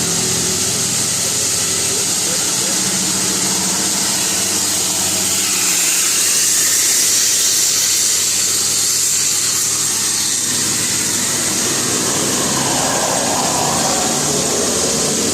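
Steady traffic noise of heavy vehicles: engines running under a loud, even hiss.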